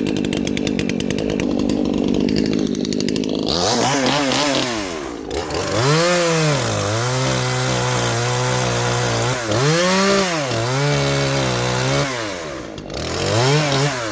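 Two-stroke chainsaw warming up after a start: it idles for a few seconds, then is revved up and down several times, held at high revs in between, and drops back toward idle near the end. The owner thinks its low-speed mixture is still set a little rich.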